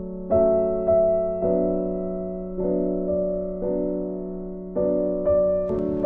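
Background piano music: a slow run of held chords, a new one struck roughly every second and each fading away before the next.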